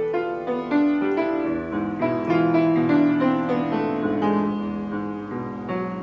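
Steinway piano being played: a flowing passage of notes and chords, with sustained bass notes under a moving melody.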